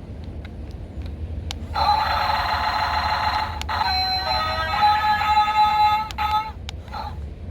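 An electronic ringing tone with several steady pitches starts abruptly about two seconds in, changes pitch partway through, and cuts off suddenly after about four and a half seconds.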